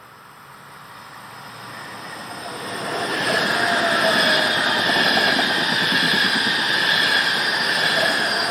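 A train approaching and passing close by. It grows steadily louder over the first three seconds, then holds a loud rumble with steady high-pitched tones running over it.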